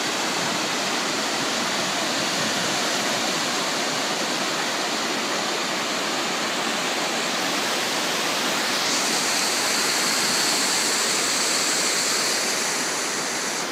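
Storm floodwater of rain and hail rushing through farm fields, a steady loud rush of water that turns hissier about nine seconds in.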